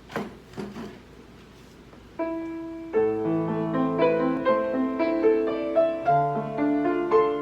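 Steinway piano being played: a few soft knocks in the first second, then a chord struck about two seconds in, followed by a flowing passage of overlapping notes.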